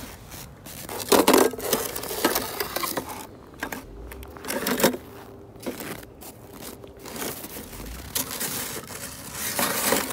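Snow crunching and scraping in irregular bursts as small die-cast toy cars are handled and pressed into it, with glove rustling. The loudest crunches come about a second in and just before the end.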